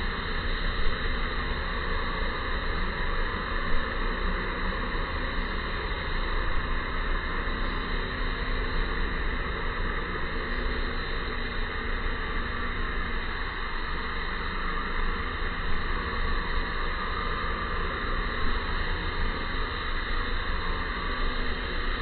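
Steady outdoor background noise, an even hiss with a low rumble, with two brief knocks in the first four seconds.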